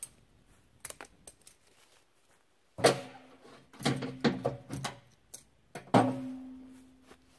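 Steel logging chain clanking and rattling against the steel plate of a tractor-mounted logging winch, in a few bouts: one about three seconds in, a quick cluster around four seconds, and a heavy clank near six seconds that rings on for over a second.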